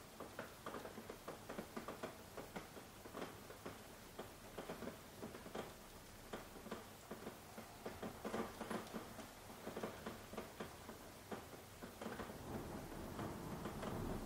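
Light rain, individual drops ticking irregularly on a hard surface, several a second. A steadier low rushing of rain grows in near the end.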